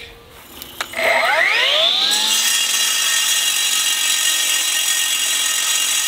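Cordless Milwaukee M18 Fuel 9-inch cutoff saw spinning up with a rising whine about a second in, then running steadily at full speed as its water-fed diamond blade cuts into a concrete cinder block.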